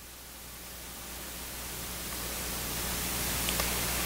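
Steady hiss with a low hum underneath, slowly getting louder, and a faint tick about three and a half seconds in: room tone of the recording with no one speaking.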